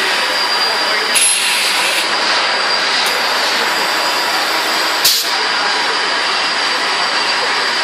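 Extrusion blow moulding machine running with a steady loud whir and hiss. About a second in comes a burst of released air lasting under a second, and about five seconds in a sharp, short blast of air from its pneumatics, the loudest moment.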